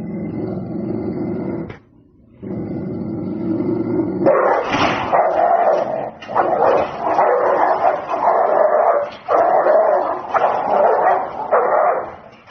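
A dog vocalizing in a run of drawn-out barks and whines, each about a second long, getting louder about four seconds in.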